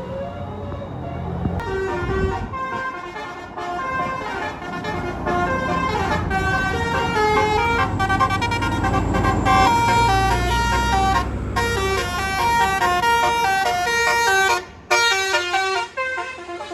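Bus telolet horn, a set of electric-valved air-horn trumpets, playing a fast melody of stepped notes. It starts after a low engine hum and breaks off briefly near the end.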